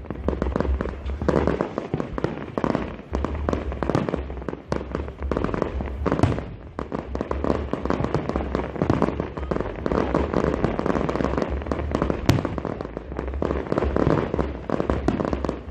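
Fireworks display: a continuous barrage of shells bursting, with dense crackling and popping in rapid succession. One especially sharp, loud bang comes about twelve seconds in.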